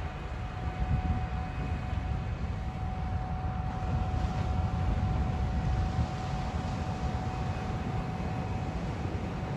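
Beach-cleaning tractor pulling a sand rake, running steadily: a heavy low rumble with a constant whine over it.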